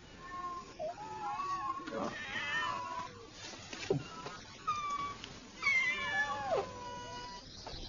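Domestic cats meowing repeatedly: a series of drawn-out meows, some overlapping, one falling in pitch near the end. A short thump comes about four seconds in.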